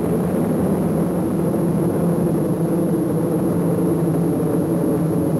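Space Shuttle Columbia's solid rocket boosters and main engines during ascent: a loud, steady low rumble that does not let up.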